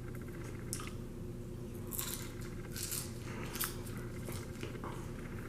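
Person chewing a mouthful of dried, seasoned mealworms (Larvets): irregular soft crunches, over a steady low hum.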